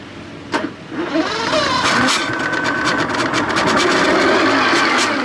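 Two-stroke Yamaha outboard motor coming up to speed: a sharp click about half a second in, then from about a second in the motor runs loudly and steadily with a rapid ticking.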